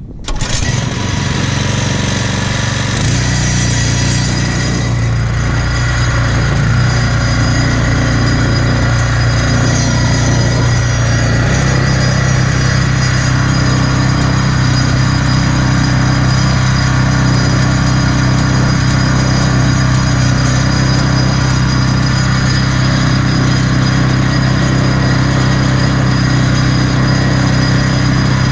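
A vehicle engine running steadily at a fairly constant speed, coming in suddenly at the start, with small shifts in engine speed a few seconds in and again around twelve seconds.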